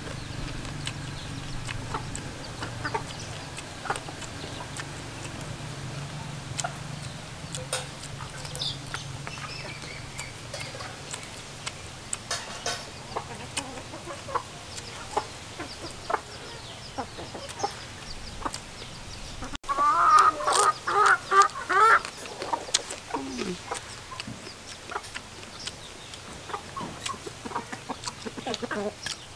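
Chickens clucking in a farmyard, with a louder run of calls about twenty seconds in and scattered small clicks throughout.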